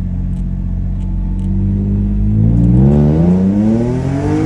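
BMW M3 engine running at steady low revs, then revving up smoothly from about a second and a half in as the car accelerates.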